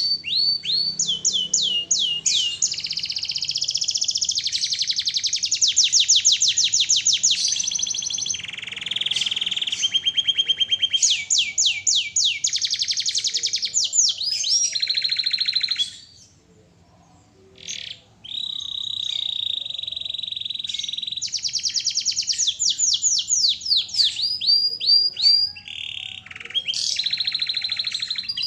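Domestic canary singing in long rapid trills: runs of quickly repeated high chirps and sweeping notes, phrase after phrase, with a pause of about two seconds just past the middle.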